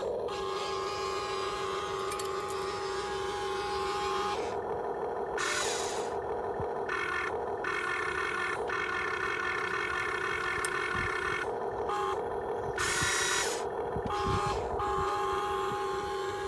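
Electric gear motors of a Huina 1592 RC excavator whining steadily. The whine changes and briefly cuts out several times as different motors start and stop.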